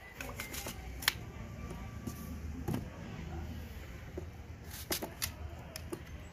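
A small knife cutting into a fresh apple held in the hand: a few sharp clicks as the blade goes into the fruit, the loudest about a second in, over a low steady rumble.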